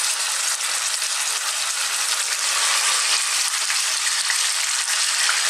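Thin strips of raw beef frying in hot oil in a saucepan over a lively heat: a steady, even sizzle.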